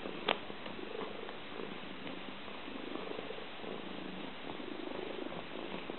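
Domestic cat purring steadily, with one sharp click just after the start.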